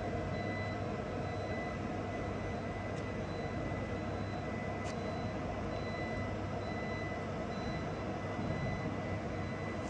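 Steady drone of workshop machinery around a CNC router, with a low hum and a faint, constant high-pitched whine; two faint ticks about three and five seconds in.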